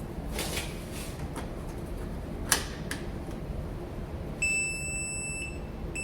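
Kwikset 910 smart lock giving electronic beeps as it powers up on fresh batteries: one long high beep about four and a half seconds in, and a second starting near the end. Before that, a few light clicks and one sharp snap from handling the battery pack and housing.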